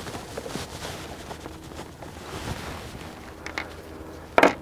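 Small clicks and handling noise from working out the Torx screws that hold a truck's mass airflow sensor in the intake, with one sharp, loud click near the end.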